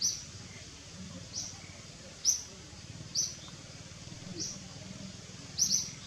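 A small bird chirping outdoors: short, high, falling chirps about once a second, with two in quick succession near the end, over a steady low background hum.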